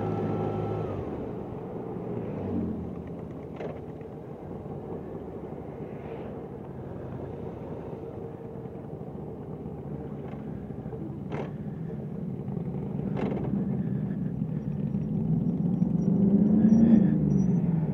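BMW R1100RT motorcycle's boxer-twin engine running at road speed, easing off about a second in. It then builds again, rising and falling in pitch near the end, with a few sharp clicks in between.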